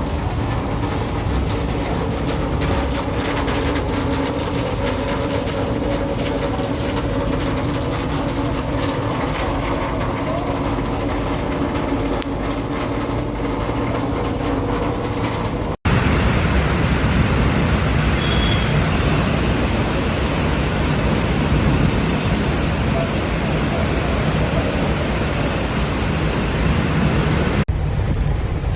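Heavy rain and gale-force wind making a loud, steady rushing noise, with a steady hum underneath in the first half. About halfway through it cuts abruptly to a denser, even rush of rain and wind.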